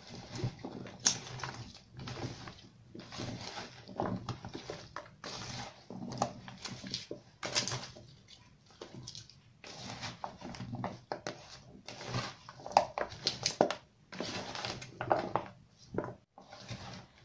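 A bare hand mixing cut potatoes, onion and mushrooms with mayonnaise in a plastic bowl, turning the pieces over in irregular strokes with short pauses between them.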